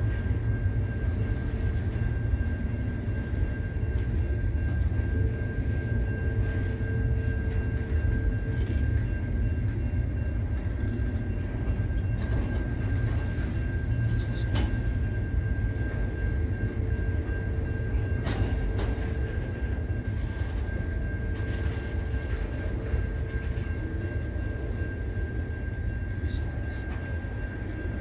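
Freight train wagons rolling past, a steady low rumble that runs on without a break, with a continuous high-pitched tone over it.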